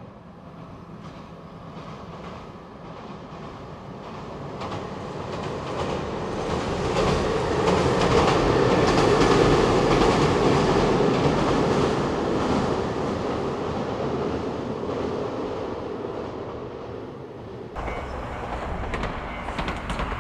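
Kiya diesel inspection railcars crossing a steel girder bridge. The rumble of wheels and bridge builds to a peak about nine seconds in, then fades as the train passes. Near the end the sound changes abruptly to the same train running on plain track.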